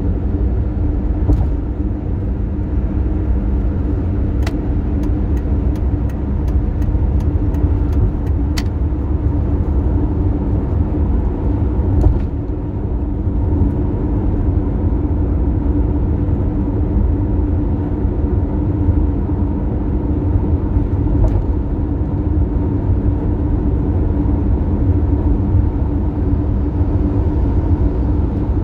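Toyota Tercel at highway speed: steady road and engine rumble with a constant droning hum, the abnormal noise that the car is being checked for. A quick run of clicks, about three a second, comes a few seconds in, and a single knock near the middle.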